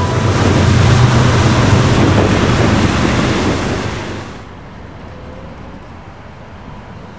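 Intermodal freight cars rolling past at speed: a loud, steady rumble of steel wheels on rail that drops away about four seconds in to a much quieter background.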